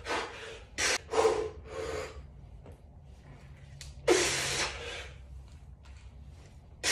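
A man breathing hard and forcefully while lifting a heavy kettlebell: several short, sharp exhales in the first two seconds and a longer, louder one about four seconds in.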